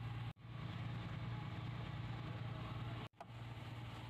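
A fishing boat's engine idling, a steady low drone, with two very short gaps where the sound cuts out.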